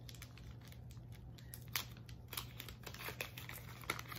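A gift's packaging being opened by hand: a run of short crinkles, rips and sharp clicks.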